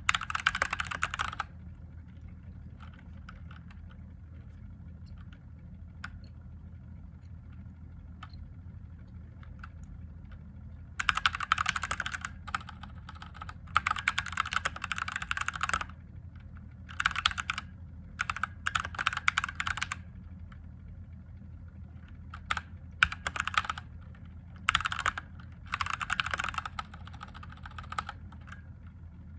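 Typing on a mechanical keyboard with Gateron Yellow linear switches: bursts of rapid keystrokes separated by short pauses, after a long pause near the start broken only by a few single clicks. A steady low hum runs underneath.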